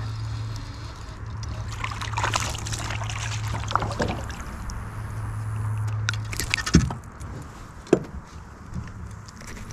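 Bow-mounted electric trolling motor running with a steady low hum that stops a little before seven seconds in. Water splashing as a small bass is brought to the boat, and a couple of sharp knocks near the end.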